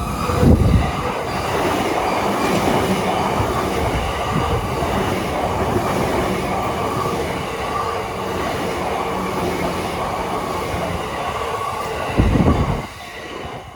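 Commuter train on the Yamanote Line passing over a level crossing: the steady rumble and rattle of its wheels on the rails lasts about twelve seconds, with a heavy low buffet as it comes through about half a second in and again just before it ends. The crossing bell keeps ringing faintly underneath.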